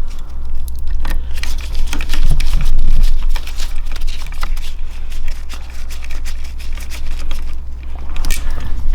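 Irregular clicks, taps and scraping of small hard parts being handled during a 3D printer repair, over a steady low hum.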